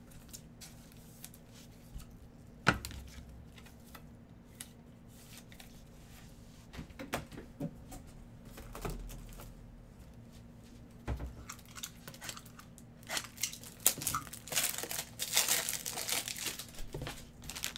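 Packaging crinkling and being torn: a sharp tap a few seconds in and a few light knocks, then a dense spell of crackling and tearing near the end.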